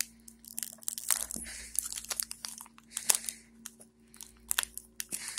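A foil Pokémon booster pack crinkling and crackling between the fingers in short, scattered bursts as someone works at tearing its top edge open.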